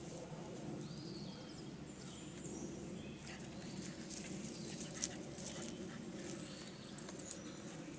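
Scattered bird chirps over a steady outdoor background, with a few light, sharp clicks about five seconds in and again near the end.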